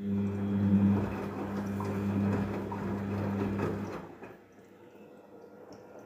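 Daewoo DWD-FT1013 front-loading washing machine on rinse: the drum motor starts abruptly with a steady hum and turns the drum, water and wet laundry sloshing inside, then stops about four seconds in.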